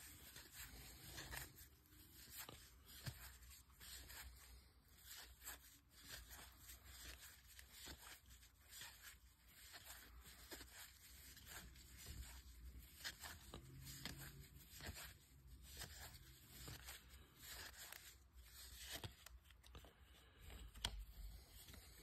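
Faint sliding and clicking of cardboard baseball cards as they are flipped one at a time from the front to the back of a stack, in short, irregular strokes.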